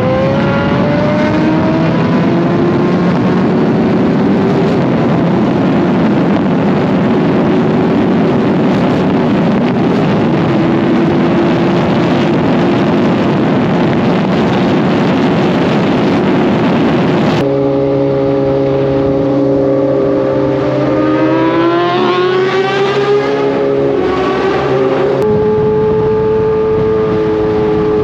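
Kawasaki sport bike inline-four engine pulling up through the revs, then holding a steady note at speed under heavy wind rush. About two-thirds of the way in an abrupt cut brings a clearer, steadier engine note that climbs briefly and settles, then another cut to a steady note.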